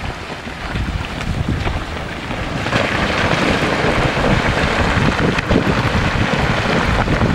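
Rockfall: rocks breaking off a cliff and clattering down onto a glacier. Scattered knocks over a low rumble swell about three seconds in into a continuous rushing clatter. Wind buffets the microphone throughout.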